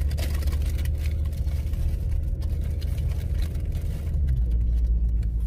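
Car running: a steady low rumble that shifts slightly lower in pitch about four seconds in.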